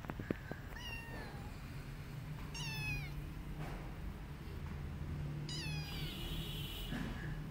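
Kitten meowing three times, thin high calls that fall in pitch, with a few sharp knocks just at the start.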